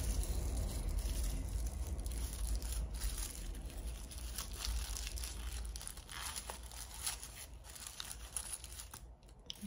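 Thin clear wrapping crinkling and tearing as it is worked off a small padlock by hand: quick, irregular rustles and crackles that thin out near the end.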